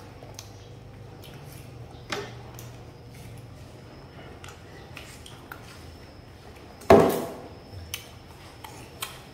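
Light clicks and knocks on a hard surface, with a sharper knock about two seconds in and a much louder knock about seven seconds in that trails off briefly.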